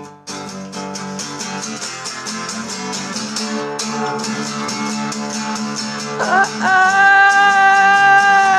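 Acoustic guitar strummed in a steady rhythm. About six seconds in, a voice scoops up into a long held sung note, louder than the guitar.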